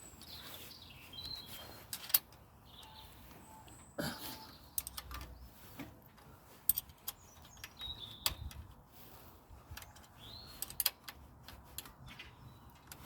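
Scattered metallic clicks and knocks of hand tools loosening the Honda CG125's handlebar clamp bolts, with a few sharper knocks about 2, 7 and 11 seconds in. Birds chirp faintly now and then in the background.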